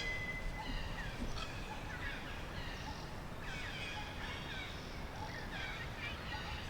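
Forest ambience with many birds chirping: short, high, overlapping calls and quick downward-sliding notes, over a steady low rumble.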